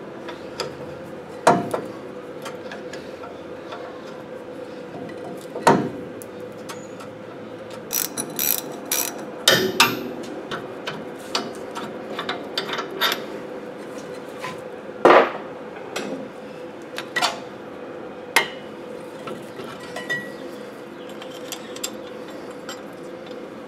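Scattered metal clicks, clanks and knocks as the front disc brake caliper of a 1995 Ford F-250 is worked loose and pulled off the rotor, with a sharp clank about fifteen seconds in the loudest. A steady hum runs underneath.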